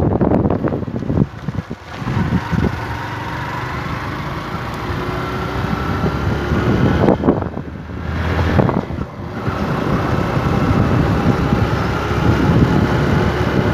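A vehicle's engine running under way, its pitch slowly rising, with a break about halfway through, beneath heavy wind buffeting on the microphone from riding in the open air.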